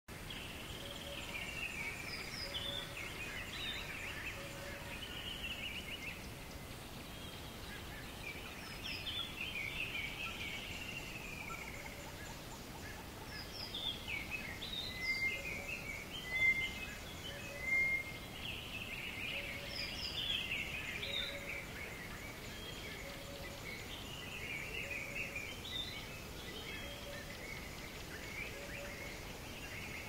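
Forest ambience of birds singing: many quick chirping and warbling phrases, a few louder whistled notes about halfway through, and a short low call repeating every second or two, over a steady soft hiss.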